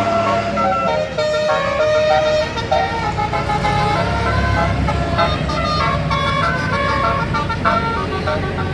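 Tour bus 'telolet' multi-trumpet air horn playing a tune of quick stepped notes, over the bus engine running, which gets louder from about four seconds in.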